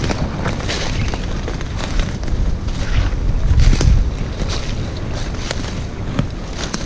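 Wind buffeting the microphone, with irregular crackles and snaps of brush and footsteps as a hunter walks through cover.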